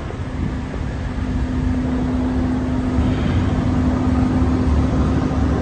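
A diesel engine idling steadily: a constant low hum over a rumble, growing a little louder about two seconds in.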